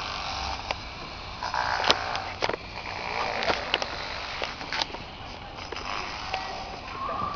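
Airsoft guns firing in irregular single shots, heard as short sharp snaps and clicks, about a dozen in all, loudest about two seconds in, over a steady rushing background noise.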